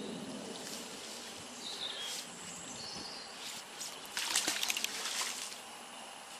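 A magnet-fishing magnet on its rope is thrown into the canal and lands with a crackling splash about four seconds in, lasting about a second.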